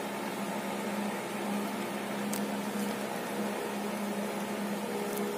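Steady low hum with a faint hiss under it: background room noise of the kind a running fan or air conditioner makes.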